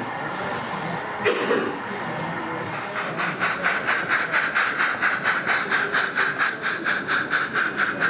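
Model steam locomotive chuffing, starting about three seconds in and keeping up an even beat of about four chuffs a second as the train runs.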